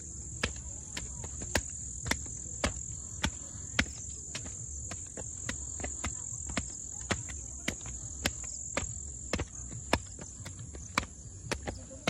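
Footsteps climbing concrete steps, sharp slaps at a walking pace of about two a second, over a steady high-pitched shrill of insects.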